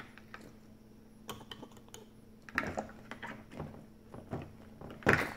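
Light clicks and knocks of plastic toy lab equipment being handled on a tabletop, from a squeeze-bulb pipette, a well tray and cups, with a louder single thunk about five seconds in.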